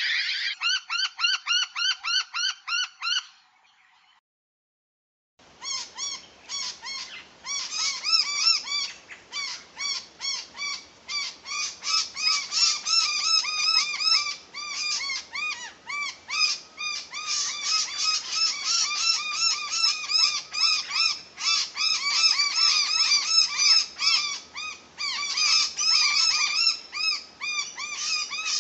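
Noisy miners calling: a run of rapid, sharp repeated notes, then after a brief silence a long stretch of dense, rapid calling.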